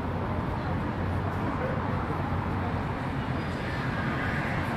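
Busy city street ambience: a steady rumble of road traffic with the chatter of passers-by mixed in.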